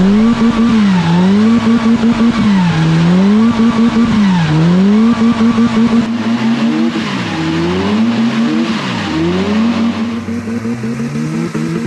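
The engines of a twin-engine Honda Civic rev up and down over and over, holding at high revs for a moment at the top of each rise. Under them runs the noise of the car's plastic drum-sleeved wheels sliding. About six seconds in, the revs settle lower and steadier.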